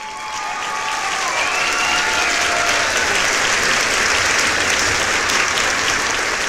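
Audience clapping, swelling over the first second and then holding steady, with a few voices calling out over it in the first couple of seconds.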